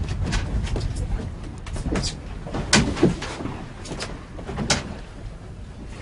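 Steady low rumble of wind and water on a small motorboat at sea, with irregular knocks and clicks of gear and footsteps on the deck; the sharpest knocks come a little under three seconds in, again just after three seconds, and near five seconds.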